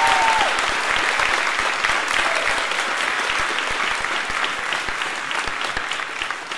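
Audience clapping, gradually dying away near the end.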